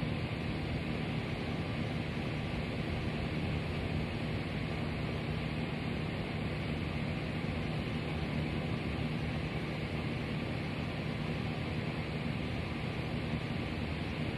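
A steady machine hum under an even hiss, with no distinct events.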